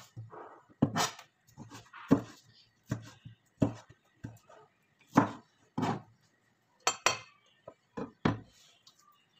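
Kitchen knife slicing a tomato on a cutting board: about a dozen sharp knocks of the blade against the board, irregularly spaced, roughly one a second or a little faster.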